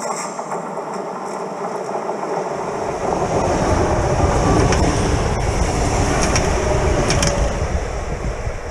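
A Renfe class 447 electric multiple unit passes at speed. A low rumble and wheel clatter build from about two and a half seconds in, are loudest near the middle, and ease off toward the end, with no horn.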